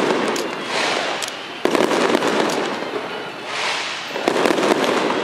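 Aerial fireworks going off: dense crackling and hissing bursts, with sharp bangs about 1.7 seconds and 4.3 seconds in.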